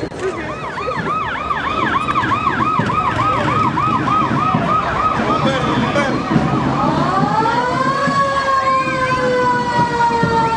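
Emergency-vehicle siren on a fast yelp, about four cycles a second, switching about six and a half seconds in to a wail that rises and then falls slowly. A low rumble runs beneath it.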